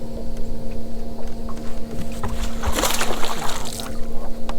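A hooked bass thrashing and splashing at the surface beside the boat for about a second in the middle, over a steady hum and low rumble.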